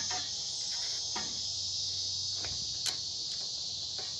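Crickets chirring steadily in a high band, with a few light clicks of a wrench working on a battery terminal.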